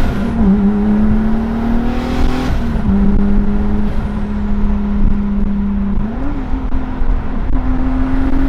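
Turbocharged VW VR6 engine pulling under load, heard from inside the car's cabin. The engine note holds a fairly steady pitch, dipping a little about three seconds in and stepping back up near the end, over road noise.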